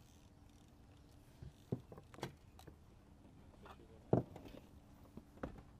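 A few scattered knocks and taps from gear being handled in a fishing boat, the loudest about four seconds in, over a faint steady hum.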